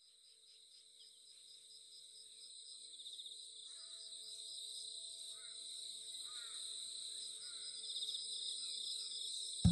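Insects trilling steadily in a high chorus, fading in from silence, with a few faint chirps in the middle. Music starts abruptly right at the end.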